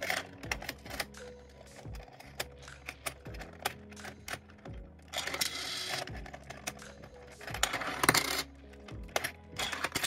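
Coins clicking and clinking in a home-made Arduino coin sorter with 3D-printed plastic parts as they are fed out and dropped into its sorting bins. There are many short sharp clicks, and twice, about five and eight seconds in, a longer rattle.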